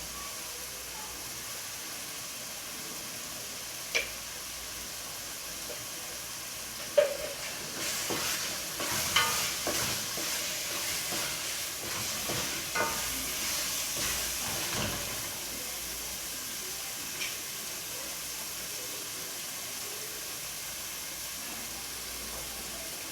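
Tomato paste and pepper frying in oil in a pot, with a steady sizzle. A spoon clicks against the pot about 4 s in and knocks about 7 s in, then the sauce is stirred and scraped for several seconds before the sizzle carries on alone.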